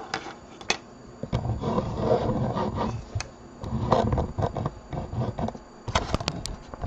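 Handling noise from a small plastic model part and paintbrush being moved and rubbed on a cutting mat: light clicks near the start, stretches of scraping rubs, and a few quick taps near the end.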